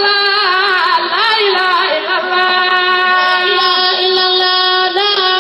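Islamic devotional chant (zikr) played back: one voice singing long held notes with ornamented turns between them.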